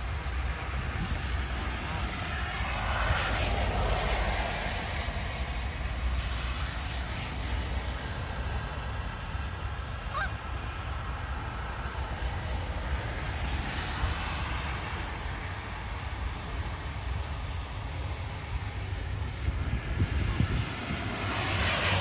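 Road traffic: a steady low rumble with passing vehicles swelling and fading on a wet road, about three seconds in, again midway, and near the end.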